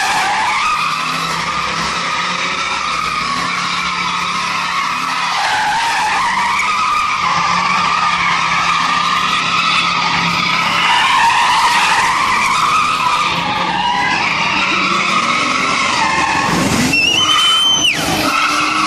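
BMW E36 328i's 2.8-litre straight-six held at high revs through a drift, with tyres squealing continuously, the squeal's pitch wavering as the car swings round. A short high whistle-like tone sounds near the end.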